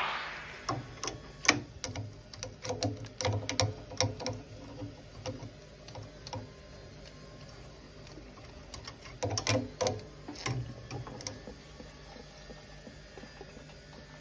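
Irregular sharp clicks and knocks of tools and metal parts being handled on a boiler, in two busy clusters, the first in the opening few seconds and the second around ten seconds in, with a faint steady background between.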